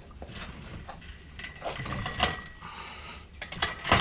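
A Joyner Spyder 650 engine being wheeled across the floor: casters rolling with a low rumble, broken by a few scattered rattles and knocks.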